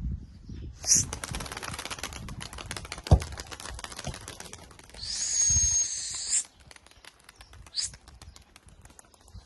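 A small flock of pigeons taking off and flying, their wings clattering in a fast, dense rattle for several seconds. There is one sharp knock about three seconds in, and a high hiss with a thin whistle in the middle of the flapping.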